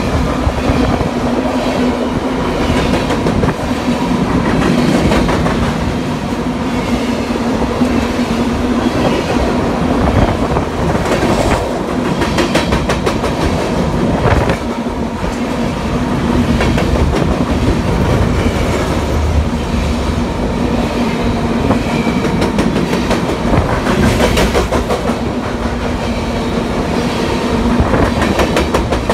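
Freight train of covered hopper cars rolling past at close range: a continuous rumble of steel wheels on rail under a steady hum, with clusters of clicking as wheel sets pass over rail joints.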